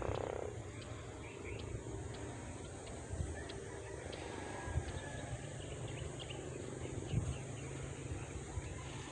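Open-field ambience: many faint, short bird chirps over a low wind rumble on the microphone, with a few soft bumps from handling the phone.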